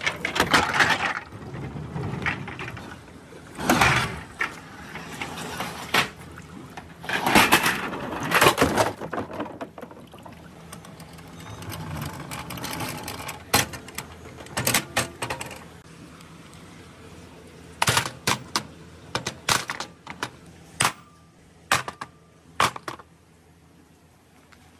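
Plastic toys being handled: clear plastic Dragon Ball balls and a plastic Tonka toy dump truck. There are several rustling, scraping bursts in the first half, then a scatter of sharp clicks and knocks in the second half.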